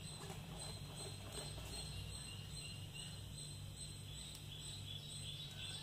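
Quiet background ambience: a steady low hum with a faint, evenly pulsing high-pitched chirp above it.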